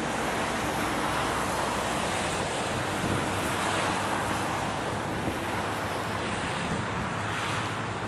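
Steady roar of a four-engine jet airliner's engines on final approach, with wind rumbling on the microphone.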